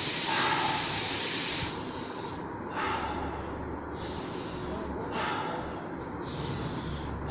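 A person taking long, deep breaths in and out as a breathing exercise, each breath an audible hiss lasting about a second, one after another.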